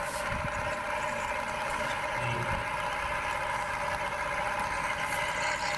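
Steady engine idling drone, several held tones with no change in pitch.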